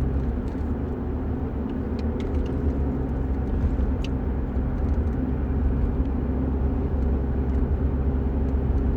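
Steady low rumble of a running vehicle, with a few faint clicks.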